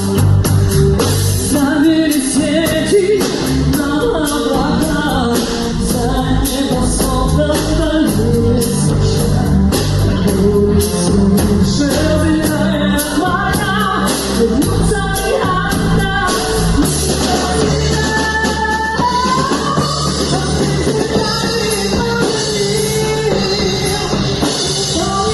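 Rock band song playing loud and steady, with drum kit and guitar.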